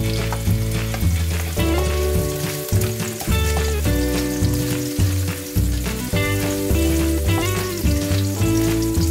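Onion, garlic and ginger sizzling in hot oil in a wok as the chopped onion goes in and is stirred with a spatula. Background music with sustained chords and a changing bass line plays over it.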